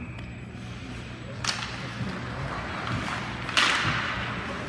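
Two sharp impacts about two seconds apart, the second louder, each ringing briefly in a large hall, over steady background noise of a game in play.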